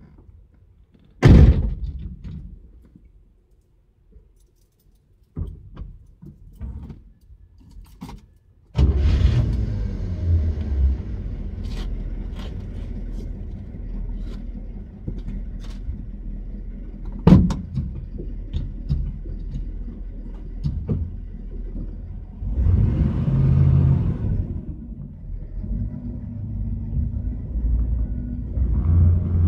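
Inside the cabin of a 1977 Chevrolet Camaro: a car door shuts with a single loud thud about a second in, followed by a few small clicks and rattles. The engine starts suddenly about nine seconds in and runs with a steady low rumble. It swells in level around twenty-three seconds and again near the end as the car gets under way.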